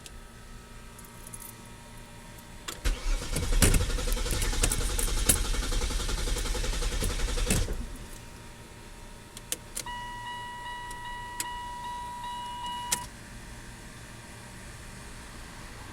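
Car's starter motor cranking the engine for about five seconds without it catching: the car will not start. A few seconds later, after a couple of clicks, a steady electronic tone sounds for about three seconds.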